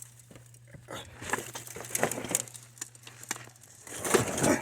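Scuffs, knocks and clothing rustle of someone climbing down a ladder into a deep dug hole: irregular footfalls and scrapes, with the loudest scraping and rustle about four seconds in as he reaches the bottom. A low steady hum runs under the first three seconds.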